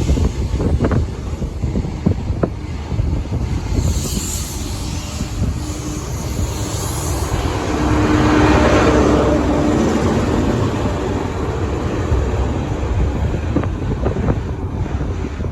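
A train running through on the main line: a heavy rumble with a few sharp wheel clicks in the first seconds and a swell of noise with a steady tone about eight to ten seconds in, under strong wind buffeting on the microphone.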